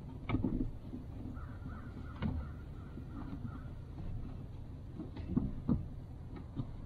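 A few scattered knocks and clunks over a steady low background rumble, with a cluster of them about a second in and again near the end.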